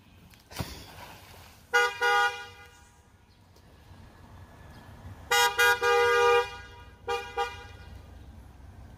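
Car horn honking in steady-pitched toots: two short toots about two seconds in, then a quick run ending in a longer blast about five seconds in, and one shorter toot about seven seconds in. A single knock sounds just before the first toots.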